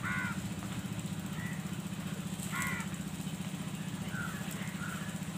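Crows cawing a few times in short calls, the clearest right at the start and again about halfway through, over a steady low hum of a running motor.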